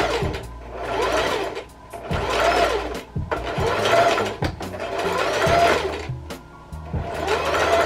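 Singer Heavy Duty sewing machine stitching hair wefts onto a wig cap in a series of short runs. The motor whine rises and falls as it speeds up and slows, with brief pauses between runs.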